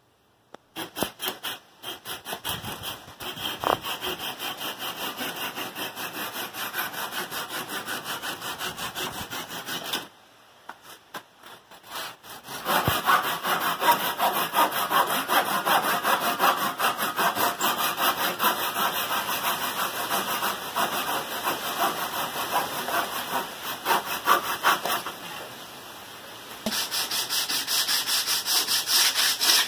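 Hand saw cutting wood in quick, even strokes, stopping for a couple of seconds about ten seconds in and then running on louder. Near the end, a sanding block rubs back and forth on the wooden frame.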